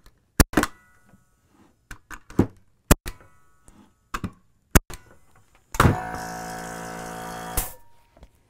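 A pneumatic framing nailer firing 3¼-inch nails into a wooden block: a string of sharp shots, some in quick pairs, running on the limited air of a small 1-gallon pancake-style compressor. About six seconds in, the compressor's motor kicks on with a steady hum and hiss to rebuild pressure, then cuts off abruptly.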